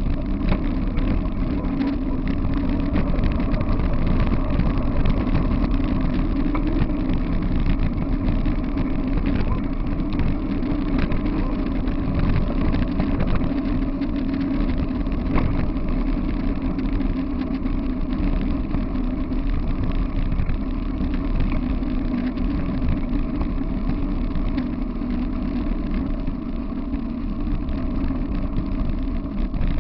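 Steady rush of wind and rolling wheels on a dirt and gravel trail, picked up by a camera mounted on a dog-drawn dryland rig moving at speed, with small knocks as the rig goes over bumps.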